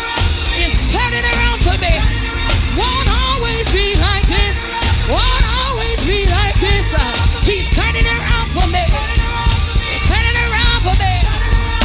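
Live gospel praise music: wordless, melismatic singing over a full band with steady drums and bass.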